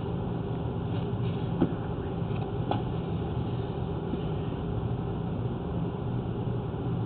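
A steady low machine hum, with a sharp click about a second and a half in and a fainter one about a second later.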